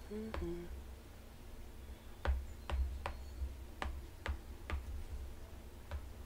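A few hummed notes at the start, then about seven sharp taps on an iPad's glass screen, irregularly spaced over a few seconds, as letters are drawn on it.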